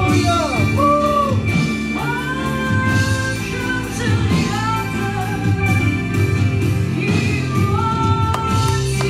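Live worship band playing a song: women singing sustained, gliding lines over electric guitars, bass and drums.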